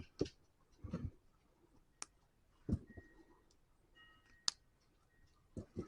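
Lego plastic pieces clicking and knocking as wheels are fitted to the model: a handful of scattered, faint clicks and taps.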